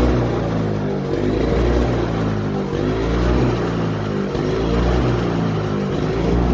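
Toro CCR2450 snowblower's 5 hp two-stroke engine running after a carburettor cleaning, its speed rising and falling again every second or two.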